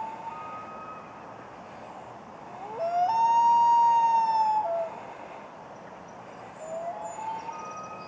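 Common loon wailing: a long, loud held note about three seconds in, gliding up into it and dropping at the end, with fainter, shorter wail notes near the start and near the end. It is the male calling to the female on her nest, urging her to leave it.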